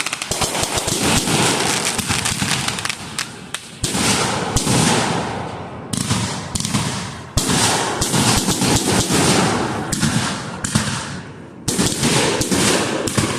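Fireworks going off close by: dense rapid crackling pops and bangs, with a fresh loud volley starting every couple of seconds and fading off before the next.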